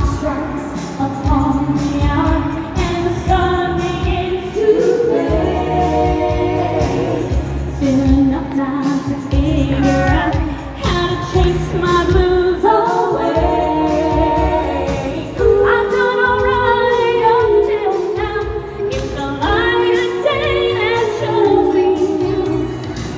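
Female vocal group singing into microphones over amplified music with a steady beat.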